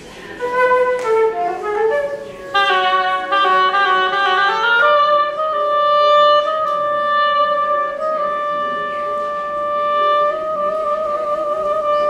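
Symphony orchestra playing a contemporary concert piece: a few short notes stepping in pitch, then a dense chord about two and a half seconds in, thinning about five seconds in to one long held note that wavers near the end.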